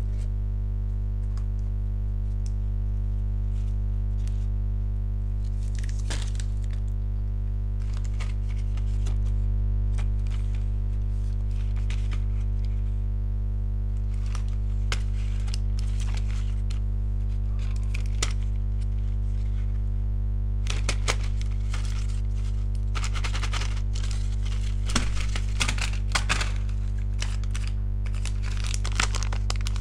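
Chewing-gum packets and candy wrappers being handled: scattered light clicks and rustles as packets are picked up and set down, getting busier and louder in the last third. A steady low electrical hum runs underneath.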